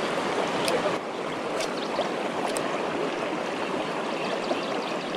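Shallow river rushing steadily over rocks, with three light clicks about a second apart in the first half.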